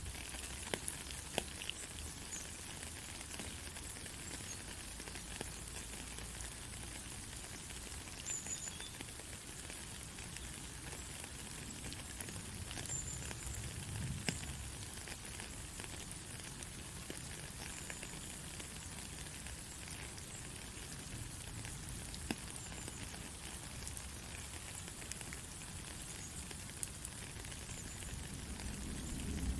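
Rain falling steadily: an even hiss with many scattered sharp drop ticks.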